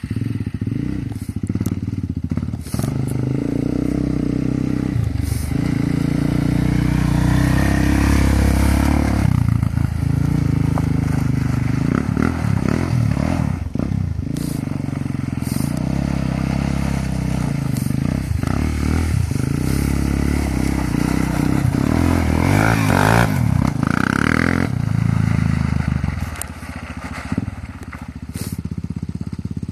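Quad bike engine running and being revved as it is ridden, its pitch rising and falling again and again.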